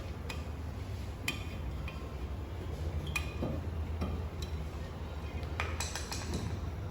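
Scattered metallic clinks and taps of tools and brake parts being handled while a car's front brake caliper is taken apart, over a steady low hum.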